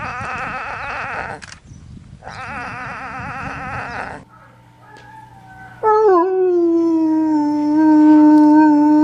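Two short warbling animal calls, then, about six seconds in, a dog howling: one long, loud, steady note.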